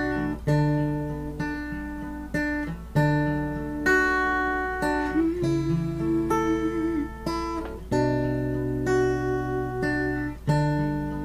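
Acoustic guitar strumming chords, each chord struck and left to ring, with a wavering sustained note near the middle.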